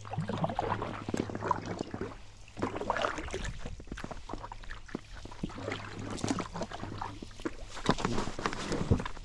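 Paddling a 10-foot Pelican kayak: irregular paddle strokes swishing and splashing in the water, with scattered sharp knocks and clicks against the hull, loudest near the end.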